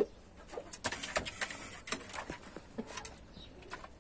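Chickens in a wooden pen making low, soft calls, with scattered light clicks and knocks.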